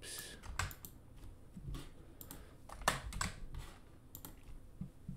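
Typing on a computer keyboard: irregular keystrokes in short runs, with one louder key about three seconds in.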